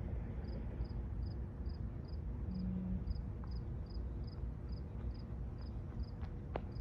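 A steady low rumble with a high insect chirp repeating evenly, about two and a half times a second, and one short low tone a little over two seconds in.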